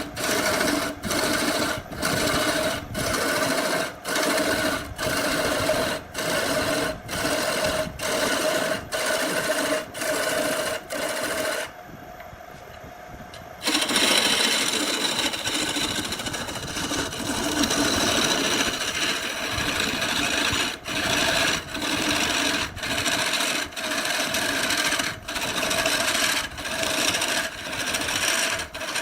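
A power tool running against wood in a regular rhythm, about three strokes every two seconds. It drops off for about two seconds partway through, then comes back with a rougher, fuller sound before the rhythm returns.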